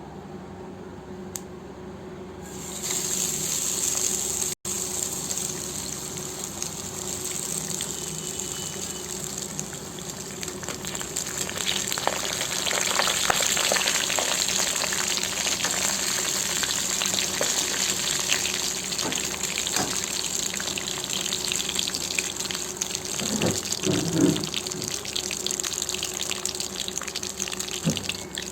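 Spice-coated pomfret (vavval) pieces deep-frying in hot oil: a dense sizzling hiss with scattered crackles. The sizzle jumps up sharply about two and a half seconds in and then holds.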